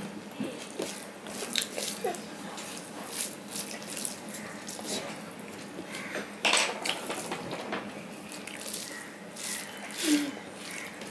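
Close-up wet eating sounds: rice and chicken curry squished together by hand on a steel plate, with chewing and mouth smacks coming as irregular sharp clicks.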